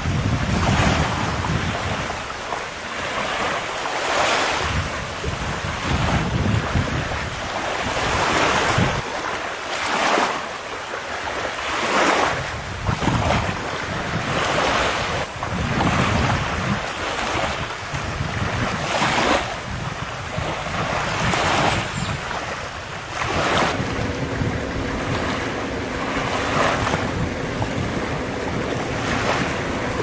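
Small waves breaking and washing up a sandy beach every one to three seconds, with wind buffeting the microphone. A steady low hum comes in about three quarters of the way through.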